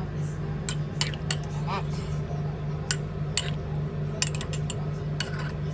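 Cutlery clinking sharply against crockery about eight to ten times at uneven intervals, some strikes ringing briefly, over a steady low hum.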